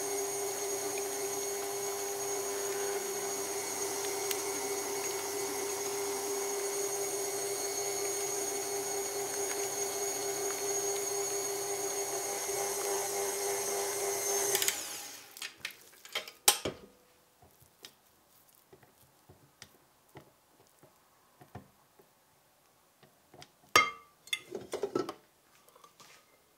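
A KitchenAid tilt-head stand mixer running steadily with a motor whine as its flat beater works eggs into choux pastry dough. It is switched off a little past halfway and stops abruptly. A few sharp knocks and clicks follow as the mixer head is tilted back.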